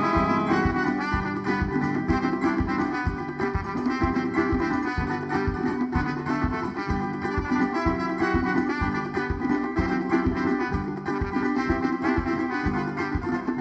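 Band playing an instrumental passage between sung verses: a horn-like melody line over a steady drum beat.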